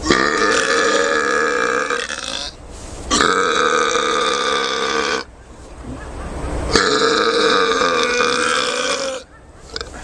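A person belching: three long, drawn-out burps of about two seconds each, each held at a steady pitch, with short pauses between them.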